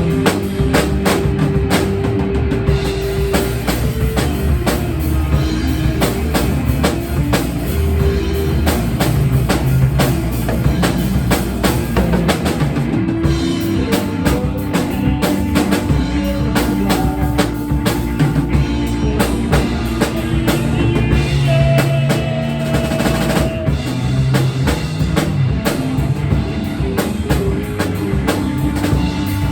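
A band playing, with a drum kit keeping a steady beat under sustained instrument notes.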